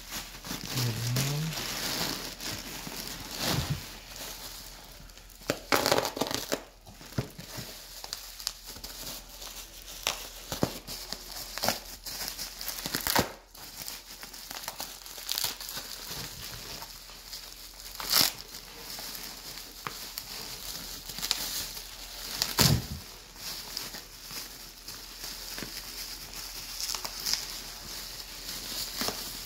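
Plastic bubble wrap crinkling and rustling as hands unwrap and pull parts out of it, with a sharp crack now and then.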